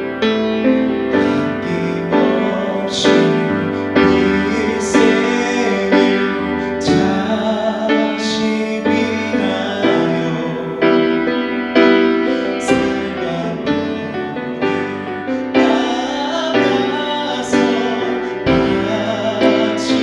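Piano playing a slow melody with full chords, an instrumental passage after the sung verses of the song.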